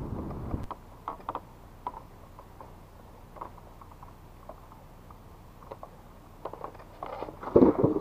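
Wind buffeting the microphone, which drops away under a second in; then scattered light clicks and taps from the spinning rod and reel being worked while micro-jigging, with a louder clattering knock near the end.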